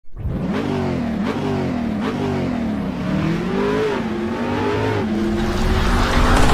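Car engine accelerating hard, its pitch climbing and dropping back several times.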